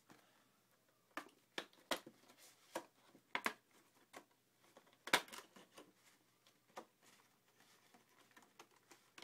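Clear plastic display-box packaging being handled and pried open by hand. Scattered, irregular clicks and crackles of the stiff plastic, the sharpest about five seconds in.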